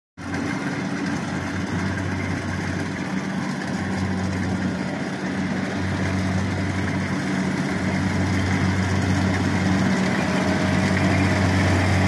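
Farm machinery diesel engine running steadily at constant speed, a low even drone that grows slightly louder over the stretch.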